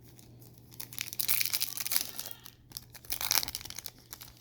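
Foil wrapper of a trading-card pack being torn open and crinkled, in two spells of crackling: about a second in and again just after three seconds.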